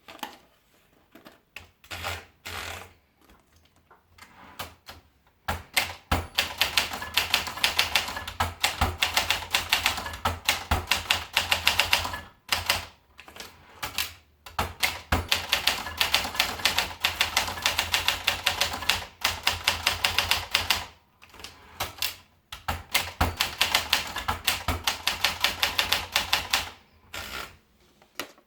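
Olympia Splendid 33 manual portable typewriter being typed on: a few scattered keystrokes at first, then three fast runs of typing, several key strikes a second, with short pauses between them.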